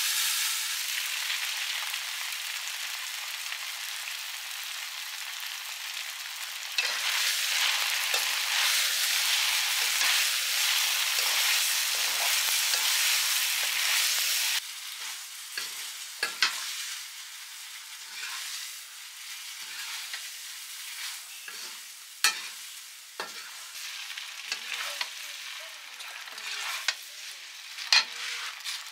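Food frying in hot oil in a pan, a steady sizzle that jumps louder about a quarter of the way in and drops away suddenly about halfway. After that a quieter sizzle goes on, with scattered clicks and scrapes of a spoon stirring against the pan.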